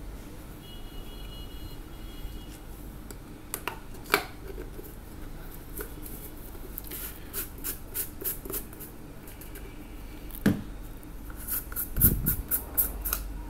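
Plastic peanut butter jars and their screw lids handled on a tabletop: scattered clicks and knocks, with a dull thump and a quick run of plastic clicks near the end.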